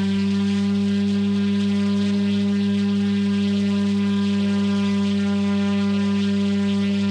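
Large 3D-printed brushless motor spinning a propeller at full power on a 6-cell (6S) battery. It gives a loud, steady hum with a strong low pitch and many overtones, with no change in speed.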